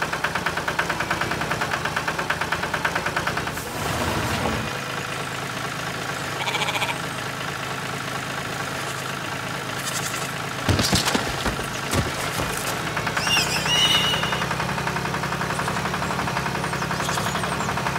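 Tractor engine sound effect, chugging rapidly at first and then running with a steady hum. A few sharp knocks come about eleven and twelve seconds in, and some short high chirps follow shortly after.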